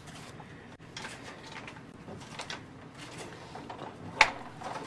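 Faint handling noises: soft rustles and small clicks as damp old paper envelopes are moved about on a plastic tray with a plastic tool, with one sharp click about four seconds in.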